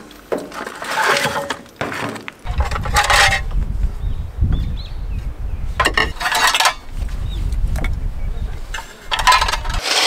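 Light clinks and knocks as a food container is handled at an open microwave. Then a low, gusty rumble of strong wind on the microphone, which cuts off just before the end.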